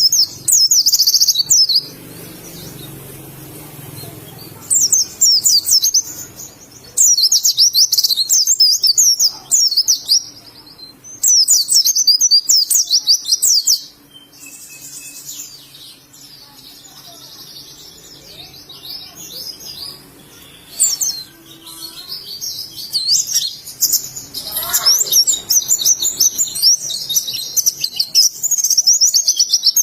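White-eye (pleci) singing in bursts of rapid, high chirping trills, with a quieter stretch in the middle and a longer run of song in the second half.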